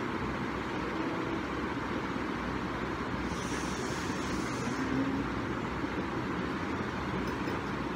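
Steady background rumble and hiss with no speech, and a brief higher hiss about three to five seconds in.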